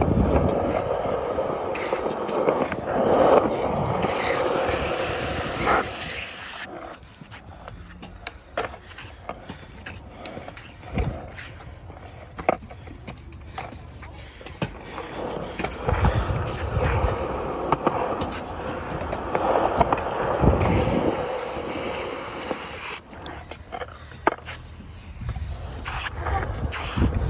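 WCMX wheelchair's hard wheels and small casters rolling over skatepark concrete. The rolling noise is loud for the first six seconds, drops away, then swells again in shorter stretches, with scattered clicks and knocks.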